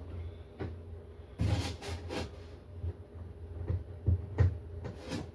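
Clicks and knocks of hands fitting nuts and bolts through a plastic kayak hull to mount a side handle. About a second and a half in comes a short scraping rustle, and sharp clicks follow near the end.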